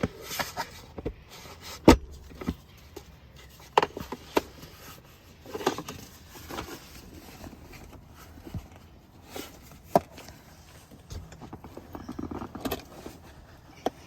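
Knocks, clicks and rustling from an infant car seat being handled and fitted in a car, the loudest knock about two seconds in.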